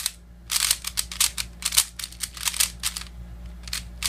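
Plastic speed cube being turned rapidly by hand: quick runs of sharp clicking layer turns with brief pauses between them.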